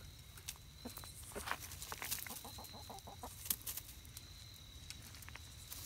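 Buff Orpington chickens clucking softly, with a quick run of short low clucks about two seconds in and scattered faint clicks.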